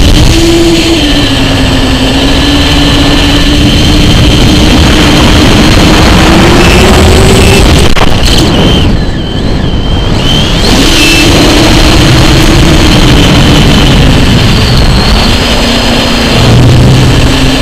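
Onboard audio from a small FPV model aircraft in flight: loud wind rush on the microphone under the propeller motor's hum, which wavers up and down in pitch with the throttle. The hum drops out briefly about nine seconds in, during a roll, then returns.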